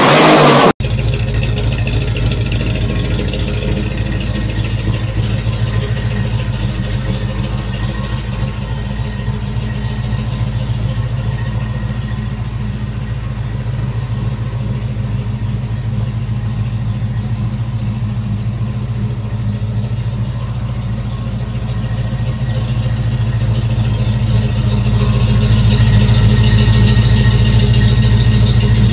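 Dodge pickup truck engine idling steadily with a low, even tone, growing louder toward the end. A loud rush of sound from the previous shot cuts off abruptly within the first second.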